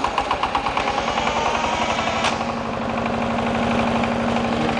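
Single-cylinder 12 hp diesel shallow-pump engine running with a fast, steady knocking chug in its first seconds after being started by a spring-powered mechanical starter instead of a hand crank. A sharp click comes a little over two seconds in.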